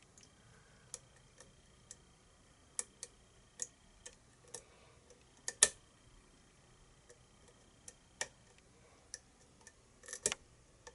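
Small, irregularly spaced metallic clicks of a lock pick and tension wrench working the pins of a pin-tumbler challenge lock with a Schlage keyway, as the picker tries to set the pins one by one. The sharpest click comes a little over halfway through, and two more come close together near the end.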